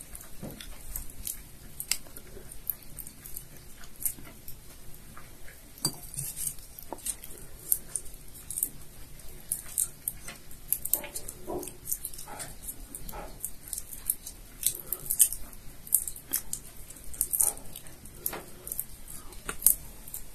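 Dry shells of dried shrimp crackling and snapping in short crisp clicks as they are peeled by hand. A dog is heard a few times in the background around the middle and near the end.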